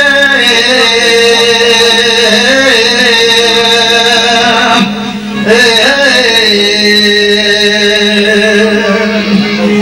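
A man singing long, held, ornamented notes into a microphone, with a short break about five seconds in before the line resumes.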